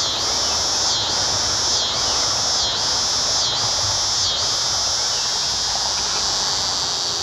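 A steady, high-pitched insect chorus. For the first few seconds the trill dips briefly about once a second, then runs on unbroken.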